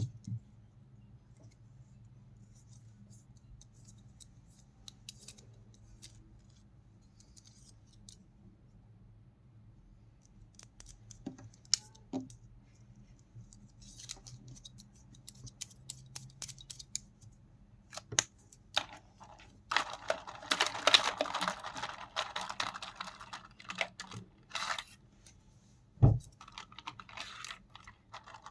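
Hands handling pen packaging and pens: scattered small clicks and taps, then a few seconds of dense scratching and rustling about two-thirds of the way through, and a single thump near the end, over a faint steady low hum.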